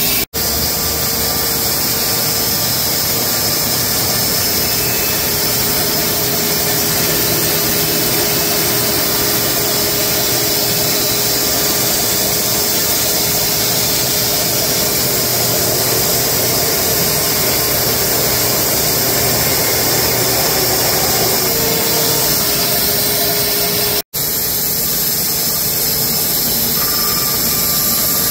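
Wood-Mizer LX250 band sawmill running, its band blade cutting through a horse chestnut log as a loud, steady, even noise. The sound breaks off for an instant twice, just after the start and about 24 seconds in.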